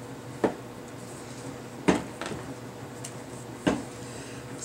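Dylusions ink spray bottles knocking as they are picked out of a basket and set down on a table: four short sharp knocks, the loudest about two seconds in.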